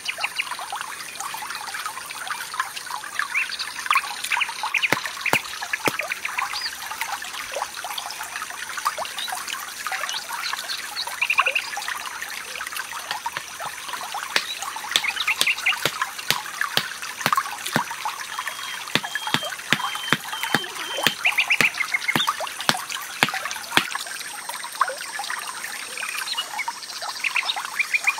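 A small stream trickling steadily, with birds chirping now and then. Over it come many sharp, irregular knocks and taps as bamboo poles are worked with a hand tool.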